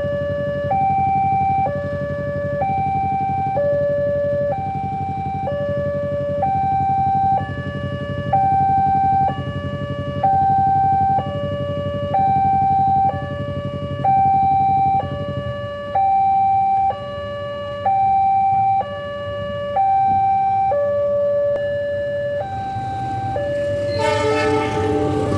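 Indonesian railway level-crossing warning alarm sounding a two-tone electronic signal that alternates between a lower and a higher tone about once a second, warning of an approaching train. Motorcycle engines idle at the lowered barrier underneath, and their rumble thins out about two-thirds in. Near the end, the approaching container freight train's horn and rumble come in.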